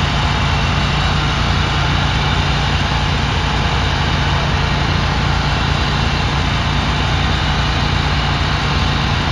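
Steady low engine hum under an even hiss.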